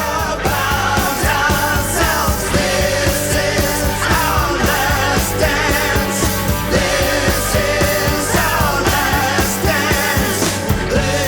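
Rock music with a male singer over a steady beat and bass.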